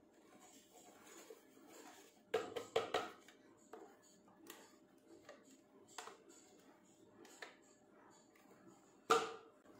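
Wooden spoon scraping thick ground spice paste out of a plastic grinder jug, with scattered knocks of spoon against jug, a cluster of them a couple of seconds in and the loudest near the end.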